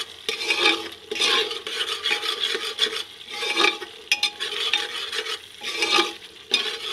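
A steel spoon stirring and scraping the bottom of an aluminium pressure cooker, working through a frying tomato-onion masala in repeated strokes, about one or two a second.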